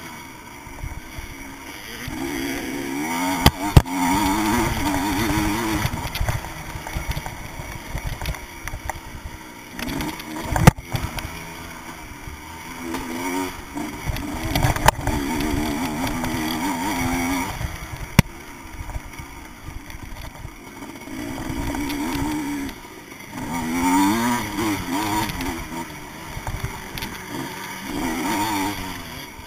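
Vintage motocross bike's engine heard on board, revving up and falling back again and again as the rider opens and shuts the throttle around the track, with several sharp knocks along the way.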